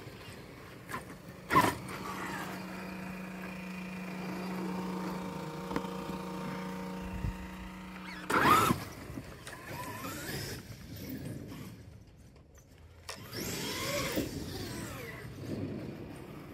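Traxxas X-Maxx electric RC monster truck driving, its brushless motor giving a steady whine with several even tones. It surges louder with a sweep in pitch about eight seconds in and again around fourteen seconds, and briefly drops almost to quiet just before.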